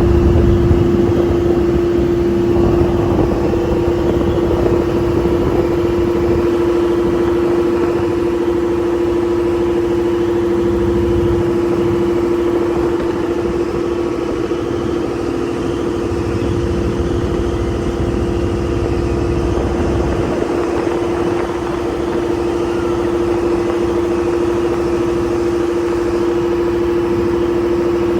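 Motorboat engine running at a steady speed, a constant hum over low rushing noise.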